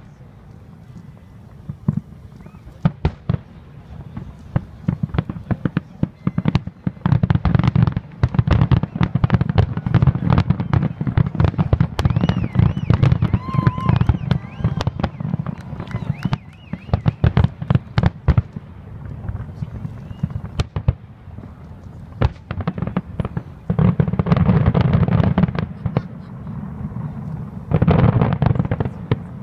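Aerial fireworks shells bursting: a rapid string of booms and crackling reports, densest from about seven to eighteen seconds in, then two more volleys near the end.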